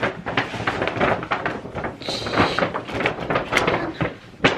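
Stiff paper crackling and rustling as hands rummage inside a large paper shopping bag, trying to pull something out, with a sharp knock near the end.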